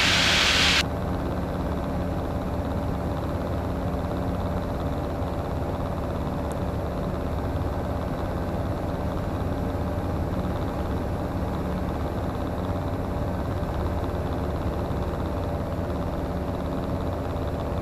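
Comco Ikarus C42C ultralight's piston engine and propeller droning steadily in cruise, heard from the cockpit. A loud hiss cuts off sharply under a second in.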